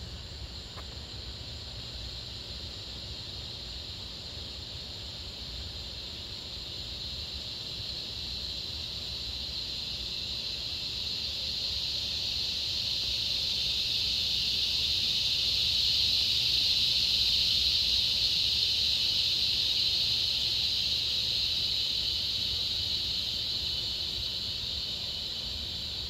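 Cicadas buzzing in a steady high drone that swells over the first half, peaks a little past the middle, then eases off somewhat.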